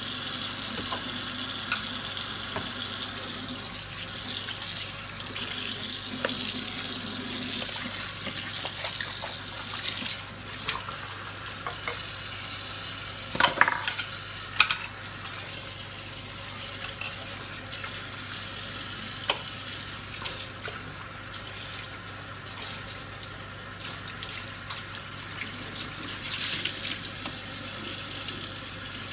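Kitchen tap running in a steady stream into a ceramic sink while scrubber brush heads and a sponge head are rinsed and squeezed under it. The splashing is louder for the first ten seconds or so, then softer, with a few sharp knocks of the parts against the sink.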